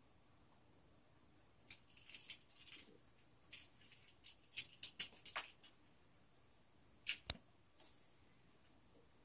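Kittens' paws and claws scuffling and clicking on a rug and wooden floor as they play, in faint scattered clusters, with two sharper clicks about seven seconds in.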